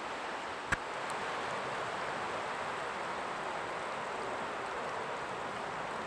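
Small forest stream flowing, a steady rush of water. There is a single sharp click just under a second in.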